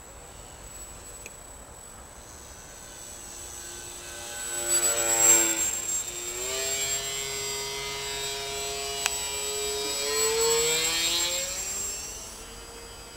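Radio-controlled model Batplane's motor and propeller buzzing in flight. It grows louder to a peak about five seconds in as the plane passes low and close, holds steady, swells again briefly, then fades as it climbs away.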